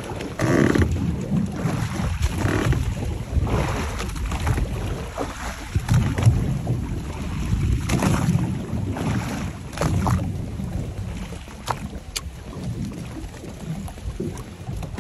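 Wind buffeting the microphone and water slapping against a small boat at sea, in uneven gusts and surges.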